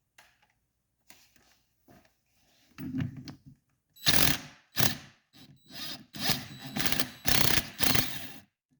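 Impact wrench hammering in a run of short bursts to break loose the 17 mm flywheel nut on a Honda TRX250R engine, after a few seconds of light tool handling. The nut comes loose.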